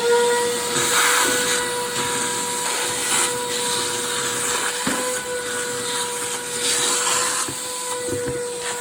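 Stanley 4-gallon wet/dry shop vacuum running steadily, a high motor whine over rushing air. A few faint ticks come through as it sucks up dirt.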